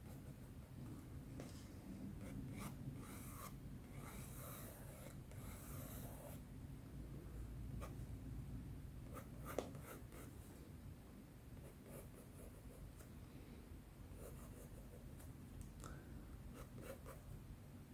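Faint scratching of an erasable colored pencil sketching on sketchbook paper in loose, irregular strokes while blocking out rough shapes. A single sharp tap about halfway through.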